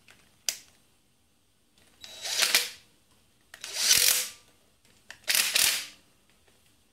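Ratchet wrench running in the two factory 10mm bolts that hold the turbo drain plate on the engine block. A single click, then three short bursts of rapid ratcheting, each under a second, about a second and a half apart.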